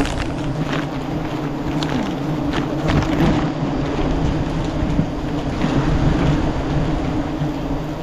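Wind rumbling and buffeting on the microphone, with a steady low hum running underneath.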